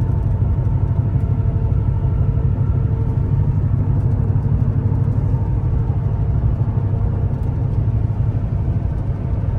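Steady low rumble of a pickup truck driving at road speed, engine and tyre noise with a faint steady whine above it.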